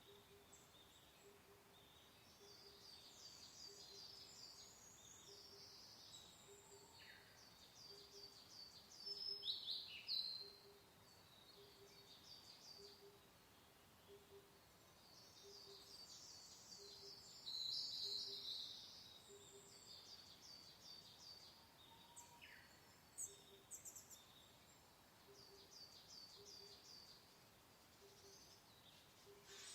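Songbirds singing repeated high, quick phrases, loudest twice in the middle, over a faint soft hiss. A faint low note repeats about once a second underneath.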